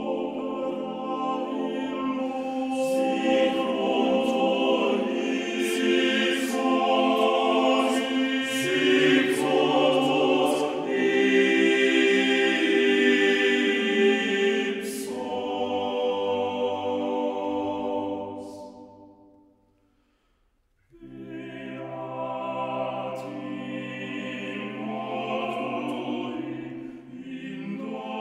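Male choir singing a Latin sacred motet in sustained chords. About two-thirds of the way through, the phrase dies away into a brief silence, then the choir comes in again more softly.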